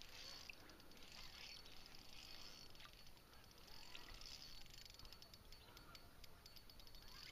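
Near silence: faint, rapid light clicking from a fishing reel as a hooked bass is played, over faint outdoor ambience.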